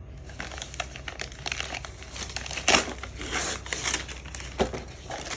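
Gift-wrapping paper being torn and crumpled as a present is unwrapped, with irregular crinkling and a few sharper rips, the loudest a little under three seconds in.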